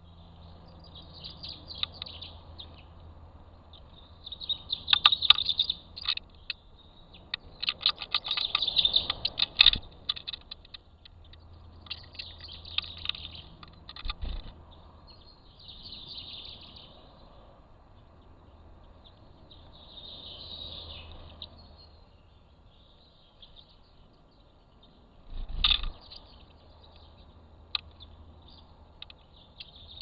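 Small birds chirping in short twittering bursts close to a trail camera, mixed with sharp clicks and taps, busiest about five to ten seconds in, with a heavier knock a little after twenty-five seconds. The taps fit a tit pecking and clawing at the camera case, which it takes for a nest box.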